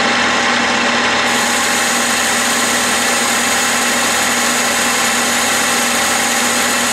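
Clausing metal lathe running at 600 RPM under power feed with a steady hum, taking a roughing cut on a pulley blank. A higher hiss joins about a second in as the tool bites and long stringy chips come off.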